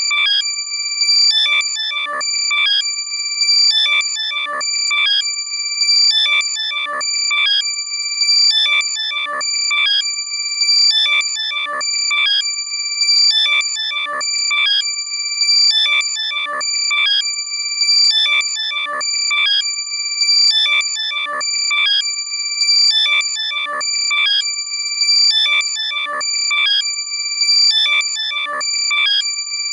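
Loud, compressed electronic chirping alert tone for locating a lost AirPod. A pattern of quick rising and falling beeps over a steady high ring repeats about once every 1.3 seconds.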